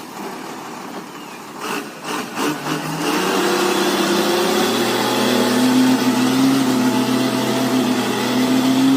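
A truck's engine, quieter at first with a few knocks, revs up about three seconds in and holds at steady high revs. The truck is straining to get free of mud.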